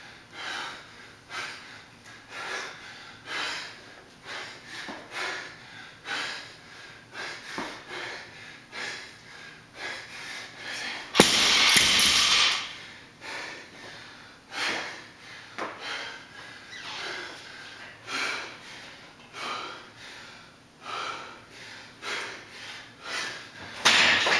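Hard, rapid panting, a breath every second or less, from an athlete deep into a thruster and pull-up workout. About halfway through, a loud crash lasting over a second as a 100-pound bumper-plate barbell is dropped to the floor, and another loud burst near the end.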